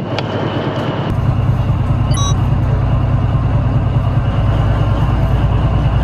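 Fishing boat's engine running with a steady low rumble that grows heavier about a second in. A short high beep sounds briefly around two seconds in.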